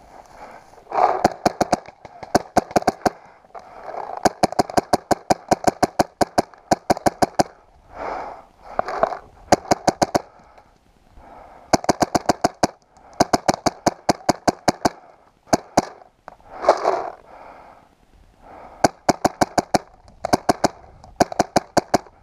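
Paintball marker firing in rapid strings of shots, about ten a second, volley after volley with short pauses between.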